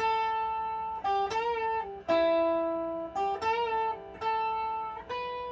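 Epiphone Casino hollow-body electric guitar played through an amplifier with a really clean tone: a single-note lead lick of picked notes, some of them bent, with a longer held note about two seconds in.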